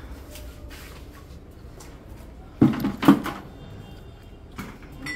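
Two sharp knocks about half a second apart, a little past halfway, and a third right at the end, as things are handled against wooden shelving.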